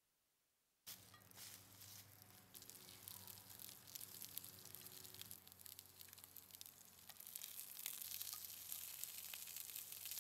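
Fennel and carrots frying in hot oil in a cast-iron skillet, a crackling sizzle. It starts suddenly about a second in and grows louder toward the end.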